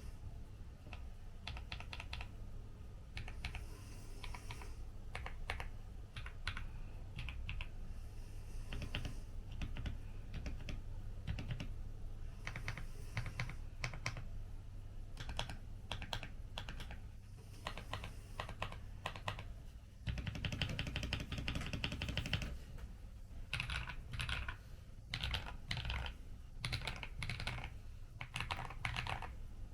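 Weikav WK75 Pro custom mechanical keyboard with Akko Cream Blue switches being typed on: an uneven stream of keystroke clacks, with a fast, dense flurry of keystrokes about twenty seconds in.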